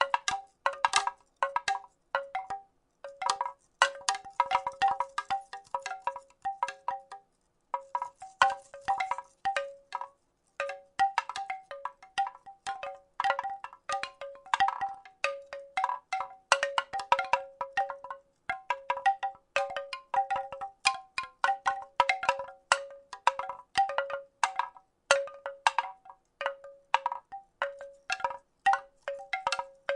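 Wooden rattle shaken in an irregular, gentle rhythm: clusters of hollow wooden clacks, each with a short pitched ring, with brief pauses about a third of the way in.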